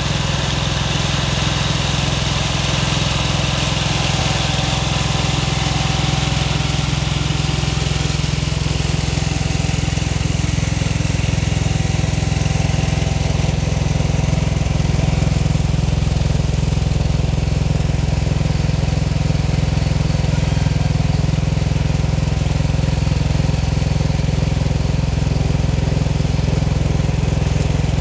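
Small gasoline engine of an Economy (Power King) garden tractor idling steadily.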